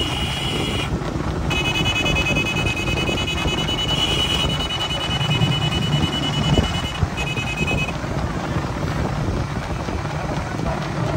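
Small motorcycles running at low speed in a close pack, with wind buffeting the microphone. A high, steady electronic tone sounds over them in long stretches, breaking off briefly about a second in and stopping about eight seconds in.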